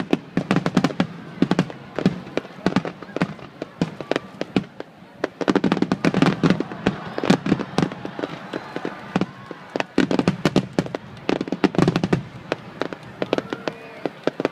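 Fireworks display: a rapid, irregular barrage of aerial shell bangs and crackling, with dense volleys about six seconds in and again around eleven seconds.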